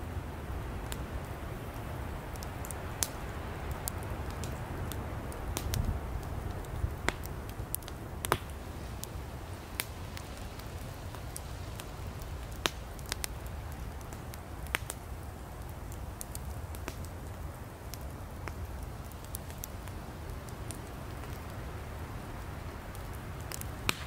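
Firewood burning: a steady low rush of flame with sharp crackles and pops scattered at irregular intervals, the loudest pop about eight seconds in.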